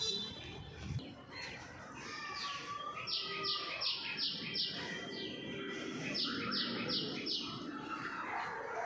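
A bird calling outdoors: a run of five quick, sharp high notes about three seconds in, then another run of four about six seconds in.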